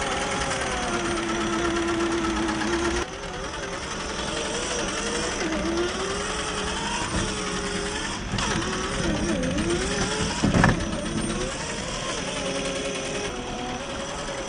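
Electric whine of an Axial SCX10 III RC rock crawler's 45T 540 brushed motor and gearbox, its pitch rising and falling with the throttle as the truck crawls at low speed. A single sharp knock comes about two-thirds of the way through.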